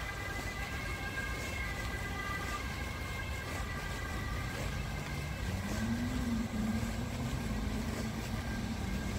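Distant city traffic rumble with a siren-like high tone that fades over the first few seconds. A low, wavering engine-like hum comes in about halfway.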